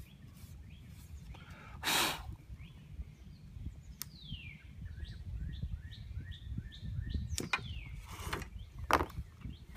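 A bird calling in a run of short rising chirps, about two a second, over a steady low outdoor rumble. A few brief handling noises come near the start and near the end.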